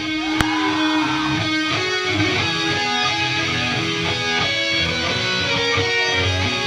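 Background music: guitar-driven instrumental with strummed electric guitar and a steady beat.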